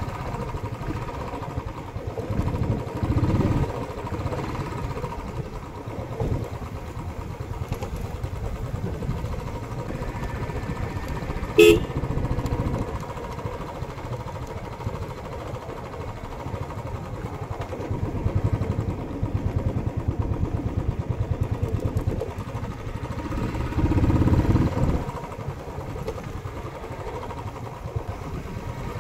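Royal Enfield Classic 350 single-cylinder motorcycle engine running steadily on the move, swelling louder a few times. A short horn beep about halfway through.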